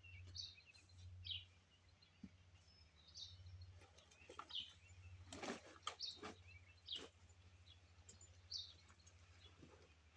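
Faint outdoor quiet with a small bird chirping in short high notes every second or so. A few soft knocks and clicks come in the middle.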